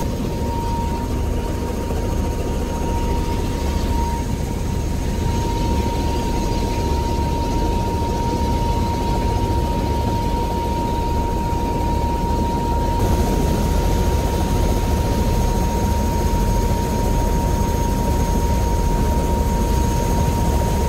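Helicopter engine and main rotor running on the ground before takeoff, heard from inside the cabin: a steady low rumble with a constant high whine.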